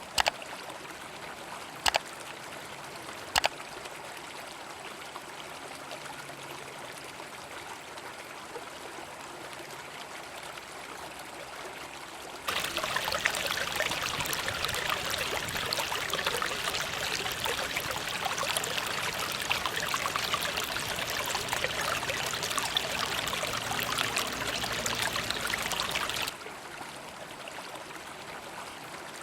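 River flowing steadily, with three sharp clicks in the first few seconds. About twelve seconds in, a louder, hissier stretch of close water or crackle cuts in abruptly and stops just as suddenly about fourteen seconds later.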